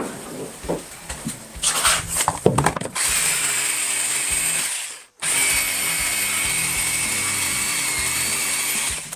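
A power tool's motor running steadily with a high whine, in two stretches split by a brief break, after a few seconds of knocks and clatter.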